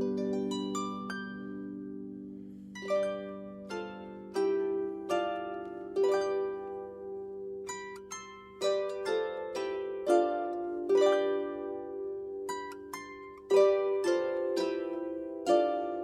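Solo harp playing a slow melody of plucked notes and chords, each note ringing on and overlapping the next, with a brief lull after the first couple of seconds.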